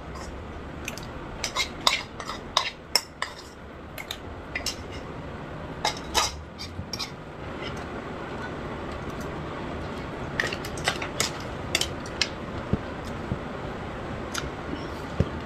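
Cutlery clinking and tapping against dishes in sharp, irregular clicks, thicker in the first half and again about two-thirds through. A steady background noise rises about halfway through and stays under the clicks.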